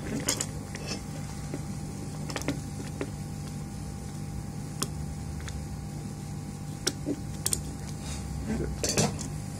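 A few small, sharp clicks and taps of a soldering iron and tools against a power-supply circuit board, spaced about a second or more apart, over a steady low background hum.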